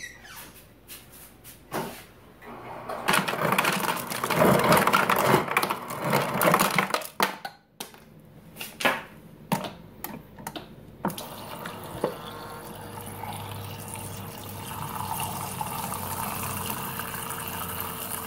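Refrigerator door dispenser running water into a plastic cup, with a few sharp clicks partway through, followed by a steady hum.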